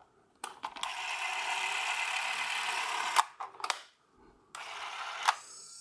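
Bauer C 500 XL M Super 8 camera's motor running at 18 frames per second: a steady whir for close to three seconds that stops with a couple of clicks. A second, quieter whir starts about four and a half seconds in.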